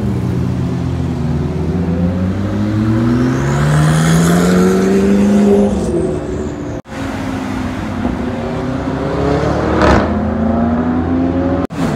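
Cars accelerating past one after another. An engine climbs steadily in pitch for about five seconds as it pulls through a gear, then after a sudden cut another car revs up and passes loudly about ten seconds in.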